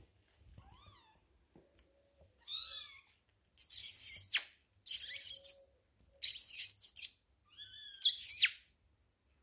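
Young Maine Coon kittens mewing: a series of high, sliding mews. A fainter one comes about two and a half seconds in, then four loud ones follow close together in the second half.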